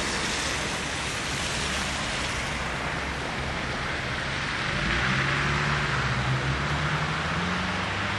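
Steady rushing street traffic noise, with a vehicle engine's hum that rises slightly in pitch from about five seconds in.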